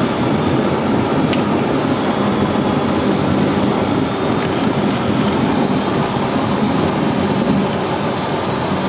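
Cessna 172's piston engine and propeller running steadily, heard inside the cockpit as a loud, even drone.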